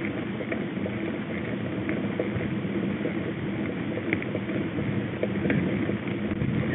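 Mountain bike rolling along a dirt track: a steady rush of tyre and air noise, with a few faint ticks and rattles.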